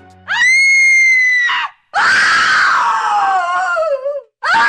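A woman screaming: a high, held shriek, then a longer, ragged scream that falls in pitch, and a third scream starting near the end.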